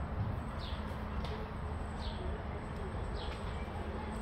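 A small bird repeating a short, high chirp that drops in pitch, four times, over a steady low rumble.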